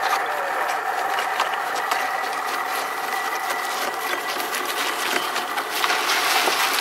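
Homemade belt-driven char grinder running, a steady motor whine under a constant clatter of charcoal chunks being crushed. Near the end, more char is tipped from a metal bucket into its hopper.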